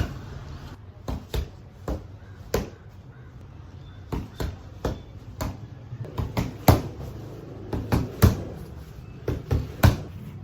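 Kickboxing punches and kicks landing on a target with sharp "tak tak" smacks, about twenty of them in an irregular rhythm, often two in quick succession.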